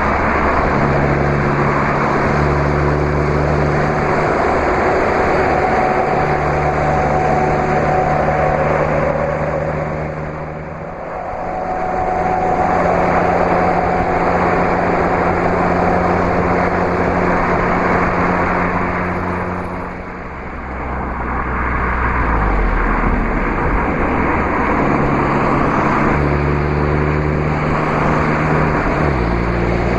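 Steady highway driving noise: tyre and wind rumble of vehicles at cruising speed, dipping briefly about eleven and twenty seconds in.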